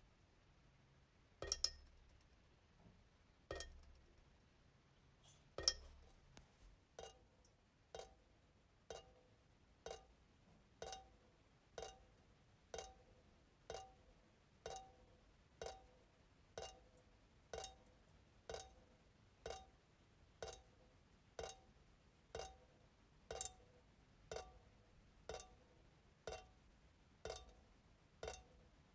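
Kitchen faucet dripping into the sink, each drop a sharp plink with a short ringing tone. The first few drops fall irregularly, a couple of seconds apart. After about seven seconds the drip settles into a steady rhythm of about one drop a second.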